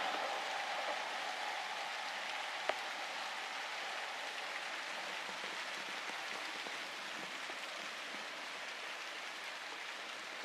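Steady rain falling, with the last of a passing train's sound dying away in the first second. A single sharp click about two and a half seconds in.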